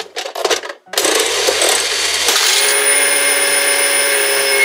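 Lever of a toy M&M's slot-machine candy dispenser pulled with a quick run of clicks, then, about a second in, a loud steady whirring rattle as the reels spin and M&M's candies drop into the tray. Steady ringing tones join in partway through.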